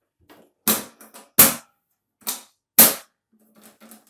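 Sheet-metal side cover of a Tesla 245 MIG welder being fitted onto the case and snapped shut: four sharp metal clacks over about two seconds, with lighter knocks between them.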